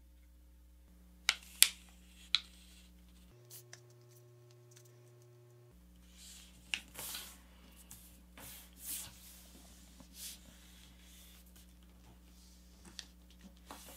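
A thin sheet of kami origami paper being folded in half by hand and creased flat on a cutting mat: three sharp taps in the first few seconds, then soft rustling and sliding as the fold is smoothed down, over a faint steady hum.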